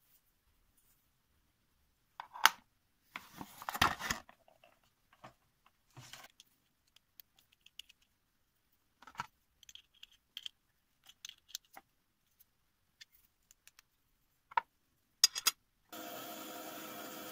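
Small metal rotary-tool bits and attachments clicking and rattling as one is taken from its plastic case and fitted into a flexible-shaft handpiece. About a second before the end, the rotary tool's motor starts and runs steadily with a whine.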